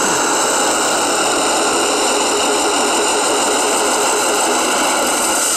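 Recorded truck engine idling, played steadily from the sound module of a radio-controlled Ural 4320 scale truck. It comes through the model's small speaker, so it has little deep bass.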